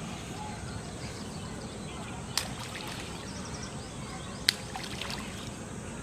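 Quiet outdoor ambience by a pond: a steady low hiss, broken by two sharp clicks, one about two and a half seconds in and one about four and a half seconds in.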